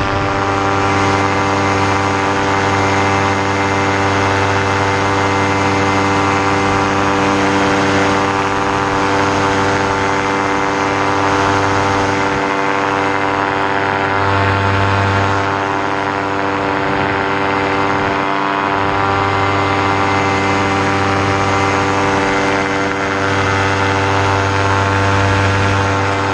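Moster 185 single-cylinder two-stroke paramotor engine and propeller running steadily at cruise power in flight, holding an even pitch.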